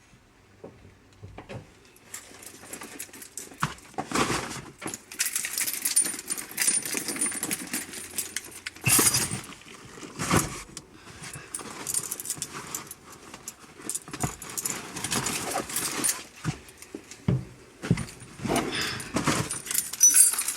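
Keys jangling amid irregular rustling and knocks.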